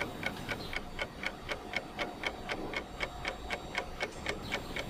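Clock ticking, about four even ticks a second, used as a sound effect to count off the wait while the camera saves a RAW image.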